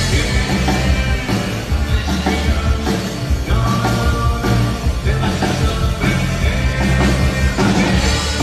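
Pop-rock band playing a song live at a soundcheck, with drums and a steady bass line under the guitars.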